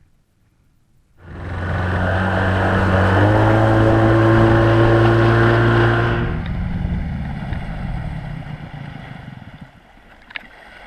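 A boat's motor starts abruptly and runs loud and steady, stepping up in pitch a couple of seconds later. About six seconds in it drops back and fades away.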